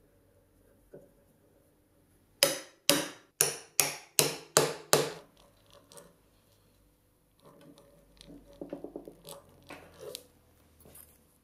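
Seven sharp knocks on wood in quick succession, about two and a half a second. Then a few seconds of rapid soft clicking and crackling as a hand brace and auger bit starts boring into a round walnut chair rail, throwing up chips.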